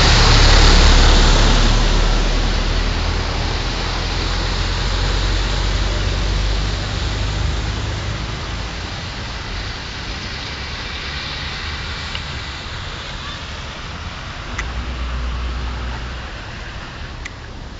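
Motor vehicles driving along a flooded street: a loud rush of churned-up water with a low engine rumble beneath it. The rush is loudest about a second in and slowly fades, and another engine rumbles past near the end.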